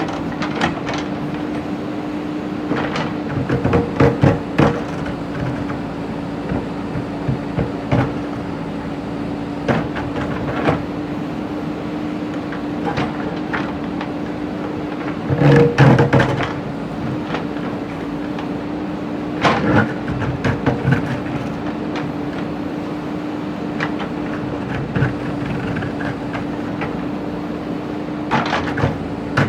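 JCB backhoe loader's diesel engine running at a steady pitch, with bursts of clanking and knocking from the bucket working stone and rubble several times.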